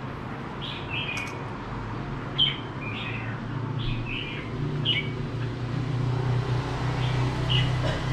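Caged red-whiskered bulbuls giving short, high chirps, about one or two a second through the first half and a few more near the end. A steady low hum runs underneath.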